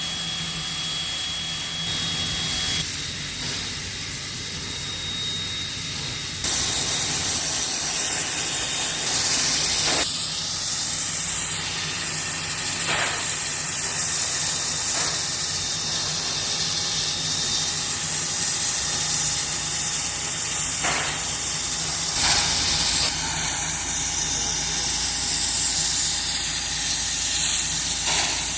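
Steam locomotive 5917, an NSW 59 class, hissing steam: a loud, steady hiss starts suddenly about six seconds in and carries on, with a few sharp knocks over it.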